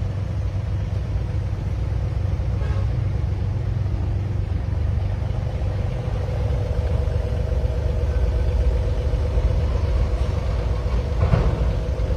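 Diesel engine idling steadily: a low rumble with a steady hum above it. There is a brief knock near the end.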